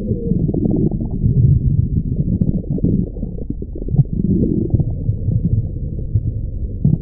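Stomach growling sound effect: a long, low, gurgling rumble that keeps going without a break.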